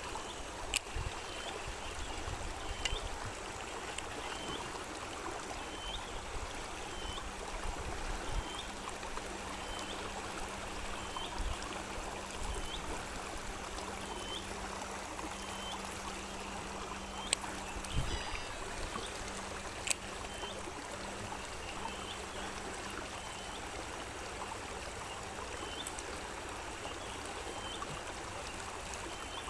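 Fast-flowing river water rushing steadily, with a short high call repeating about once a second over it and a few sharp clicks.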